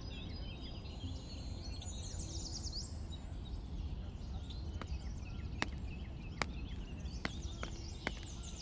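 Outdoor ambience: birds chirping over a steady background hum, then footsteps on a paved road from a little past halfway, about one step every 0.8 s.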